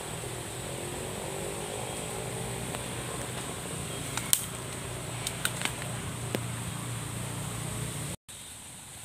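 Steady outdoor hiss and low hum, with a few sharp snaps and crackles of dry bamboo leaves and twigs between about four and six and a half seconds in, the first the loudest. Near the end the sound cuts off abruptly and returns as a quieter background.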